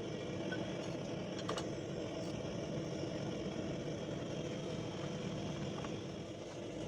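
A steady mechanical drone, like an engine or motor running, with a faint click about a second and a half in.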